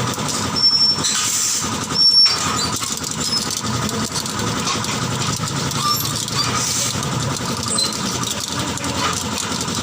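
A steady, mechanical engine-like running noise, with two sharp knocks: one under a second in and one about two seconds in.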